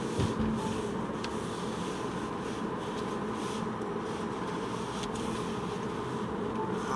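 Steady road and engine noise inside a moving car's cabin, with a low thump about a quarter second in.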